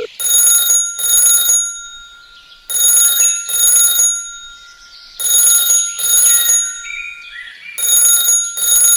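A bell rings in pairs of short rings, a pair about every two and a half seconds, four pairs in all, with a bright metallic, alarm-like ring.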